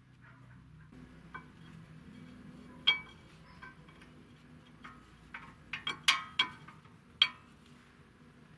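Light metallic clinks and taps of brake parts and tools being handled. There is one sharp clink about three seconds in, then a quick cluster of louder clinks around six to seven seconds in.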